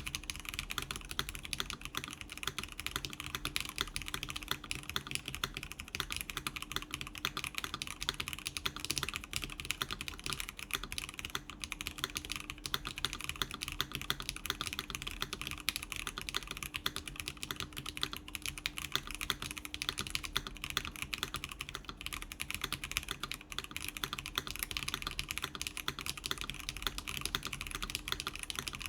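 Steady, fast typing on a mechanical keyboard: a NovelKeys Classic TKL with factory-lubed NK TypePlus Classic Blue switches, a polycarbonate plate, case foam with a silicone insert, and GMK keycaps. The keystrokes run in a dense, unbroken stream of clacks.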